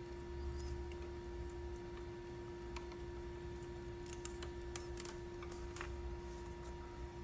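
A handful of light, sharp clicks over a steady low hum and rumble, most of the clicks bunched together a little past the middle.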